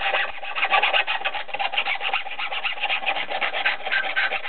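A hacksaw cutting through the steel rail of a piece of old O27 model train track, in rapid, even back-and-forth rasping strokes.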